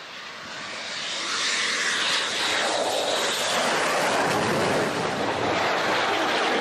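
A low-flying military aircraft approaching. Its engine noise builds over the first second and a half, then holds loud and steady as it comes overhead.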